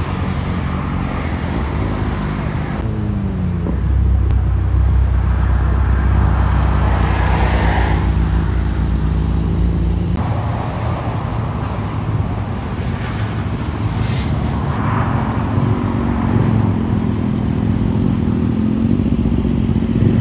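BMW S1000RR-family superbike inline-four engines running, their pitch rising and falling with the throttle, over highway traffic. A deep rumble is loudest from about four to ten seconds in.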